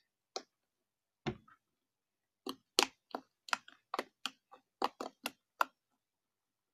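Slime being kneaded and pressed by hand, giving sharp clicking pops as trapped air bursts: a couple of single pops, then a quick run of about a dozen, roughly three to four a second, stopping near the end.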